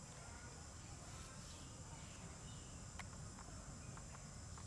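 Steady high-pitched drone of insects in the background, over a low rumble, with a few faint ticks about three to four seconds in.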